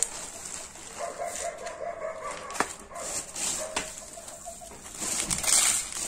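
Plastic bags of cracked corn and wheat rustling and crinkling as they are handled, loudest near the end, with two light clicks. Behind it, a bird gives a long, even call of about three seconds.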